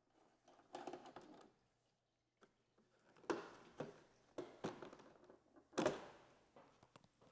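Plastic trim panel being prised off a Suzuki GSX-R1000's bodywork by hand. It starts with a soft rustle of plastic, then comes a string of sharp clicks and light knocks as the clips and fasteners let go.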